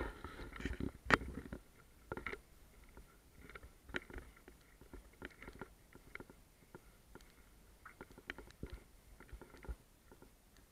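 Footsteps scuffing and crunching over rubble and debris on a stone floor: irregular clicks and scrapes, busiest in the first second with one sharp knock about a second in, then sparser.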